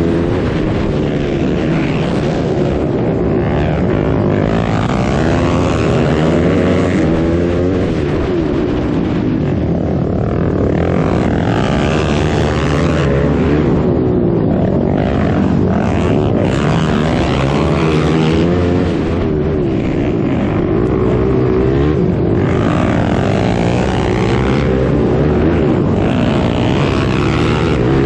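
Onboard sound of a racing ATV's engine under hard throttle. It revs up and falls back again and again, with wind noise mixed in.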